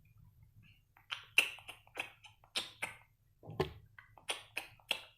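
Crunching eating sounds: a run of short, crisp clicks, about two or three a second, starting about a second in.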